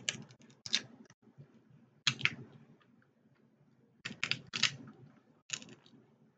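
Cooked crab leg shells being cracked and snapped apart: sharp cracks in several bunches, about every second or two.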